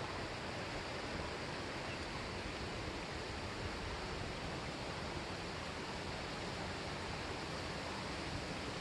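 Steady, even rush of a mountain stream running high and fast after weeks of rain, with no separate events standing out.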